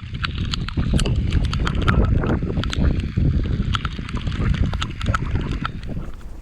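Strong wind buffeting the microphone in a heavy gusty rumble, with a steady scatter of sharp, irregular ticks and taps throughout.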